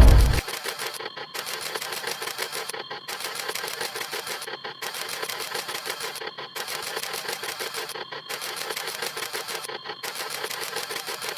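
Camera shutter sound effect: rapid, fast-repeating clicks in a loop, with a brief break about every second and three quarters. A loud, deep sound cuts off just at the start.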